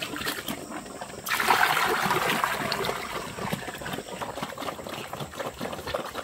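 Liquid poured from a plastic basin splashes into a muddy feeding trough, starting suddenly about a second in and trailing off, over the small clicks of pigs eating.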